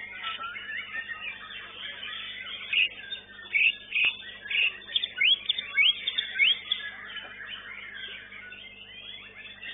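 White-rumped shamas (murai batu) singing together in a dense chorus of chirps and whistles. Between about three and a half and six and a half seconds in there is a run of loud, sharp rising whistles.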